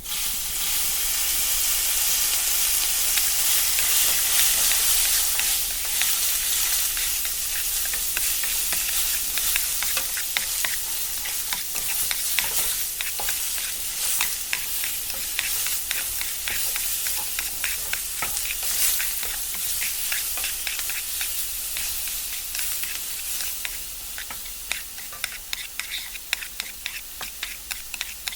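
Fake fried-rice slime being stirred and mixed, a dense crackling, sizzle-like hiss that starts suddenly and thins into separate crackles near the end.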